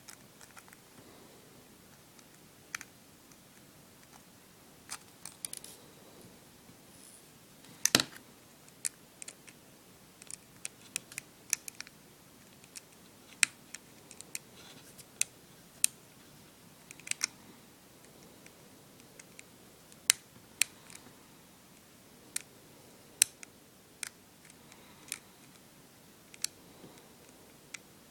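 Irregular small, sharp clicks and taps of a precision screwdriver and tiny metal parts on an opened iPod as its tiny side screws are worked out. The loudest click comes about eight seconds in.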